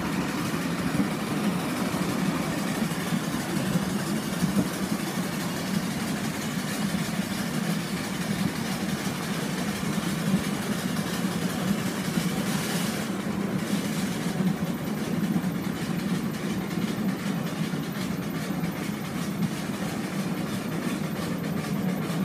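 Ride-on miniature railway train running along its track, heard from one of its passenger cars: a steady rumble with a dense, fast rattle of wheels on the rails.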